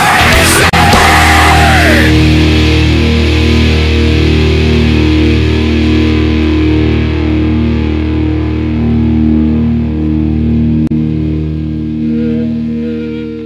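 Rock music with electric guitar, settling about two seconds in onto a long held chord that rings on and fades out near the end.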